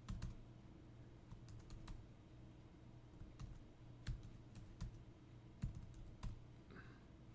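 Faint, irregular keystrokes on a computer keyboard as a name is typed in, over a low steady hum.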